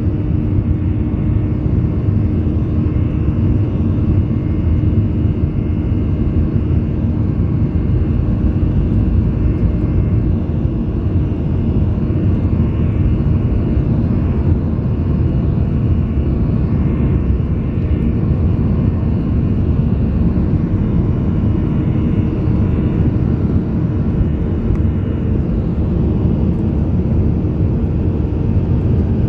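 Boeing 737-800 heard from inside the passenger cabin under way: a loud, steady low rumble of the CFM56 turbofans and airflow, with a steady hum over it.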